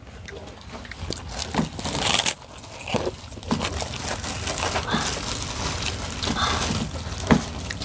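Thin clear plastic bag crinkling and rustling in irregular bursts as it is handled and pulled open.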